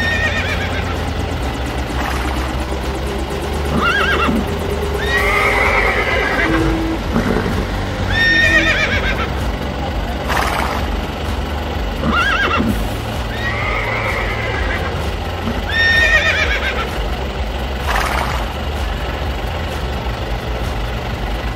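Horse whinnies, about nine of them a couple of seconds apart, each a wavering high call, over a steady low hum.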